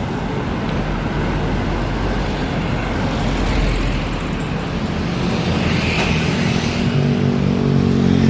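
Bus engine and road noise, a steady rumble. Over the last few seconds the engine note grows louder and rises.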